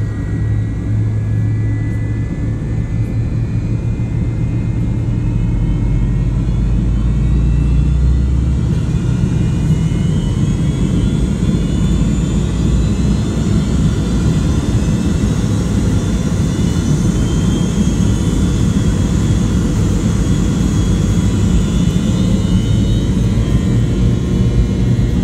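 McDonnell Douglas MD-88's rear-mounted Pratt & Whitney JT8D jet engines spooling up for takeoff, heard inside the cabin. A low hum grows into a louder rumble, and from about ten seconds in, whining tones climb steadily in pitch as the plane starts its takeoff roll.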